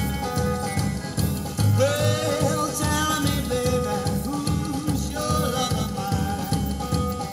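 1950s-style rockabilly band recording: a steady, driving beat with a singing voice coming in about two seconds in.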